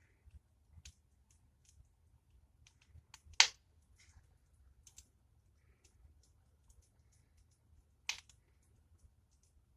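Fire in a fireplace crackling: scattered small crackles, with two louder pops, the loudest about three and a half seconds in and another about eight seconds in.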